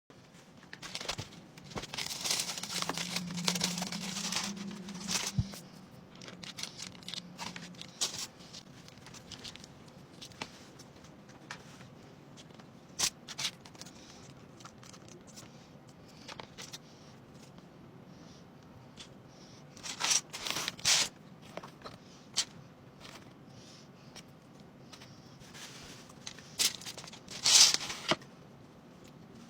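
Heavy breathing close to the microphone: noisy breaths in irregular bursts, a long stretch in the first few seconds and sharper, louder ones about twenty seconds in and near the end, with scattered small clicks and rustles between.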